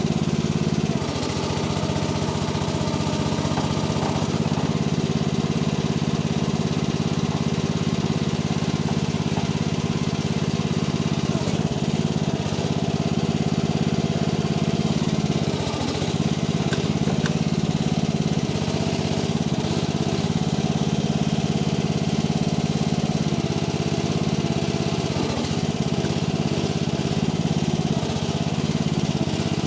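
Mini-excavator engine running steadily at working speed while the log grapple is worked, its note dipping briefly a few times as the hydraulic load changes.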